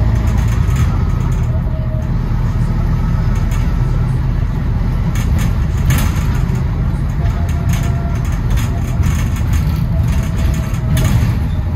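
A London bus's engine rumbling steadily as it runs, with short knocks and rattles every few seconds.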